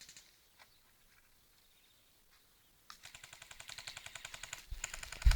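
Airsoft guns firing full-auto: a rapid stream of shots cuts off just after the start, a lull with a few faint single pops follows, and a new rapid string of shots starts about three seconds in and keeps going, getting louder near the end.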